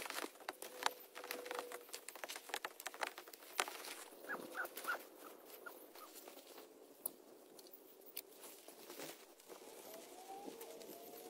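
Light rain falling as scattered sharp drips and taps, thinning out about halfway through. Near the end a husky whines in a few short rising notes.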